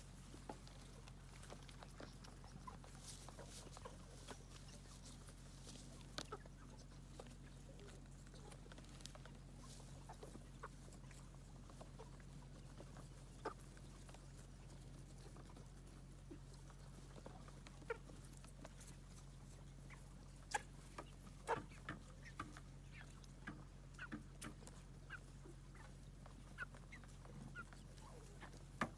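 Faint sounds of a flock of Cornish Cross broiler chickens feeding: soft scattered clucks and short pecking clicks over a steady low hum. The clicks come more often in the last third.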